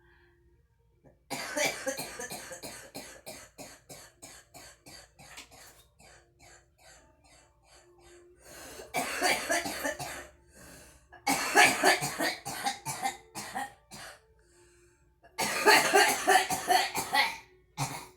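A girl coughing after smoking, in four fits of rapid coughs. The first fit starts about a second in and tails off slowly, and the later ones are shorter and louder.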